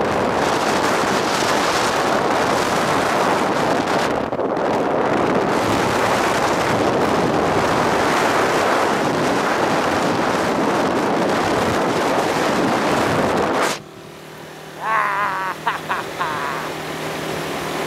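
Wind rushing over the microphone on a moving Suzuki Raider R150 motorcycle, a steady loud noise. About 14 s in it cuts off suddenly to a much quieter steady hum, with a brief voice.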